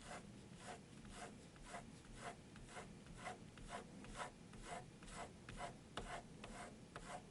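Caran d'Ache 844 mechanical pencil with 0.7 mm HB lead drawing lines on paper: a faint, short scratch of graphite on paper about twice a second.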